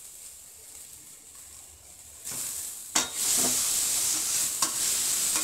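Chopped tomatoes frying in hot oil with onion and ginger-garlic paste in a steel kadai. A faint sizzle turns into loud sizzling about two seconds in as they go into the pan. A metal spoon clicks against the pan about three seconds in and again near the end as the mixture is stirred.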